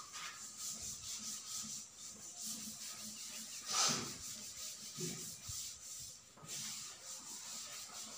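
Blackboard duster wiped back and forth across a chalkboard, erasing chalk in repeated scraping strokes, with one louder scrape about four seconds in.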